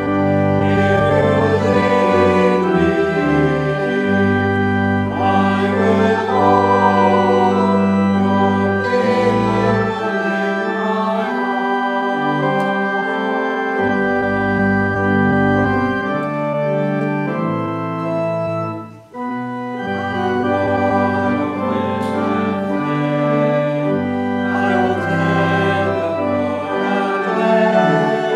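Church organ accompanying a congregation singing a hymn, in slow sustained chords. The music breaks off briefly a little past halfway, then the organ and singing resume with the next verse.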